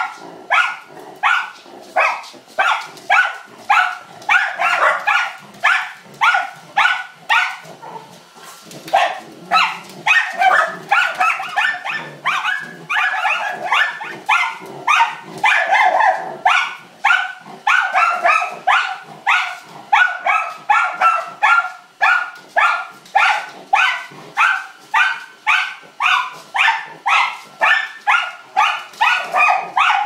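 Miniature Schnauzers barking at a robotic vacuum cleaner in a long, rapid run, about two barks a second, with a brief lull about eight seconds in.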